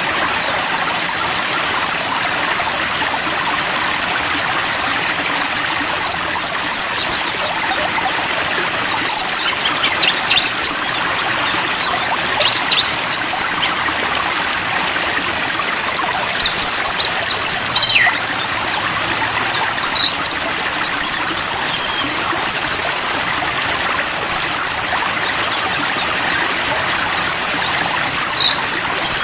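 Steady rush of running stream water, with a small songbird singing short, high chirping and whistled phrases every few seconds.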